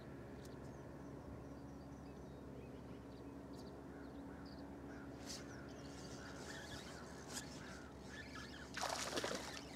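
Quiet open-water ambience, then a short splash about nine seconds in as a fish strikes a topwater lure on the surface.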